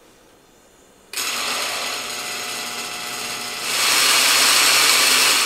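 Countertop blender switched on about a second in, its motor running as it purees fresh strawberries with lemon juice and sugar. About two-thirds of the way through it gets louder and harsher and stays so.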